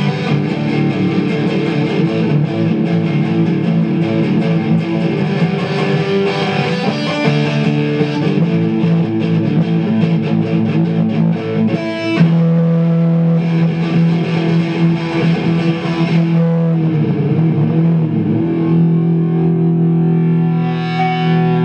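Electric guitar played loud through an amplifier, with distorted sustained chords. About twelve seconds in it moves to a held low note, and near the end to bent, wavering notes. The volume is cranked high enough that the camera's recording distorts.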